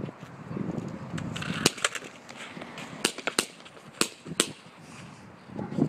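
A series of sharp clicks and knocks, about eight, irregularly spaced, over faint background noise.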